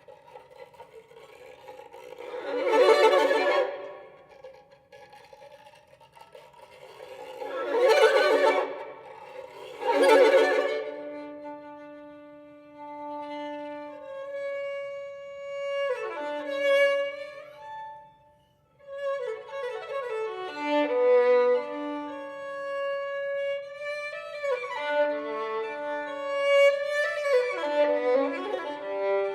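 Solo violin playing a contemporary piece: three loud swelling bowed strokes, rough and noisy, rise and fade in the first half. After that come held notes broken by sweeping downward slides in pitch, with a brief near-silent break around two-thirds of the way through.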